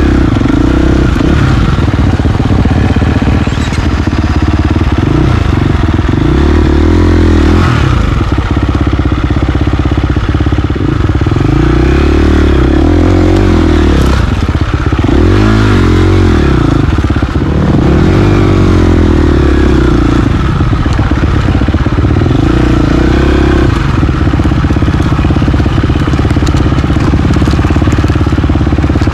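KTM 350 XC-F single-cylinder four-stroke dirt bike engine running close to the microphone, its revs rising and falling again and again as the throttle is worked over rough trail, with a few sharp knocks from the bike.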